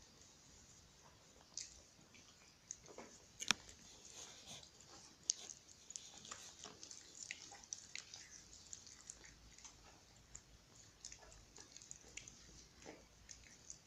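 Puppies licking and mouthing a person's fingers: faint, scattered wet smacks and small clicks, with a few sharper clicks among them.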